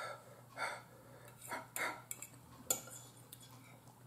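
A metal fork clinking and scraping against a dinner plate a few times as food is picked up: light, separate clicks.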